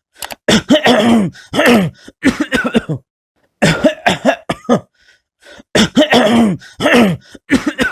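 A man coughing and clearing his throat loudly over and over, in a string of harsh voiced hacks that each drop in pitch, with a short break about three seconds in.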